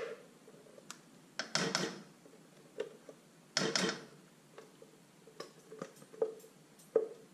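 A spatula scraping thick cashew cream out of a blender jar into a pan of spinach: two short scraping bursts, then a few light taps and knocks against the jar and pan.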